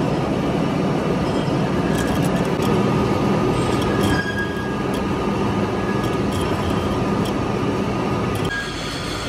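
Vertical lathe cutting a large steel gear as it spins: a steady grinding machine noise with a few thin whining tones, and scattered sharp clicks as metal chips fly off.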